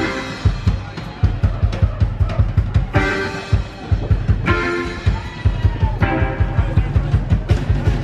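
Live rock band playing: electric guitars over a drum kit keeping a fast, steady beat.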